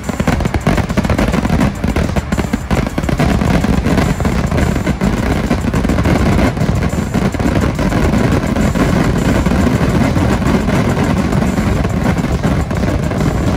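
Fireworks exploding in a rapid, unbroken barrage, the bangs coming so close together that they run into one continuous din.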